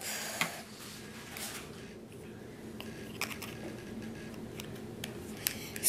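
Faint handling sounds from a can of Goofy String being shaken and handled: a brief rustle at the start, then a few light, irregular clicks over a low steady hum.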